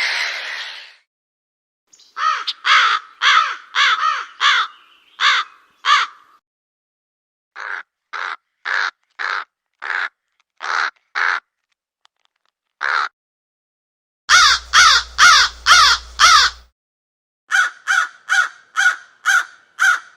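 Crow cawing in runs of short, harsh caws, about two to three a second, with pauses between the runs and a single caw just before the middle. A noisier call fades out in the first second.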